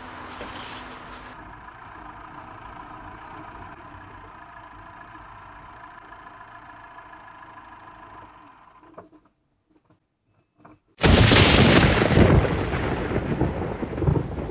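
Steady vehicle driving noise with a faint hum fades out about nine seconds in. After two seconds of near silence, a sudden loud crash of thunder breaks in and rolls on with a rush of rain.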